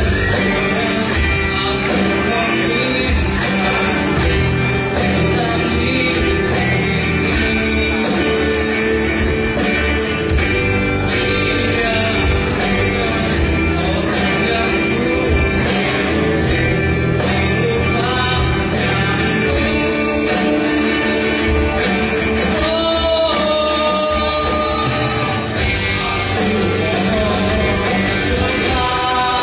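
Live rock band playing: distorted electric guitars, bass guitar and a drum kit, with a vocalist singing over them.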